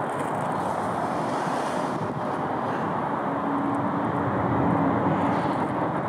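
Douglas DC-3's twin radial piston engines running, heard from a distance as a steady rumble. A faint hum comes in past the middle, and the sound swells slightly near the end.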